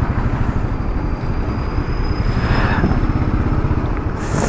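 Royal Enfield Classic 500's single-cylinder engine running as the bike is ridden, its rapid firing pulses steady under road and wind noise, with a short hiss near the end.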